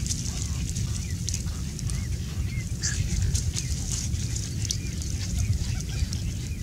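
Dry reeds crackling lightly as a cast net and landed tilapia are handled on them, over a steady low rumble. A few short, faint chirps come in near the middle.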